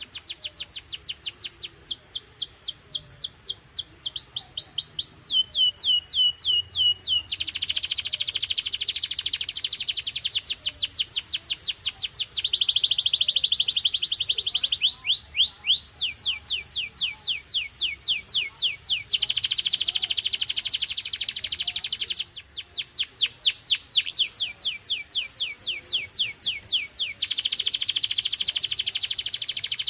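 Domestic canary singing a continuous song of rapid repeated notes: each passage repeats one high note many times a second, then switches to a new note every few seconds, some passages of downward-sweeping notes, others very fast trills.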